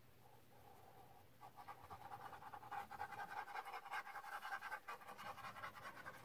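A dog panting fast and faintly, with a steady high tone running through it. It starts about a second and a half in and keeps going.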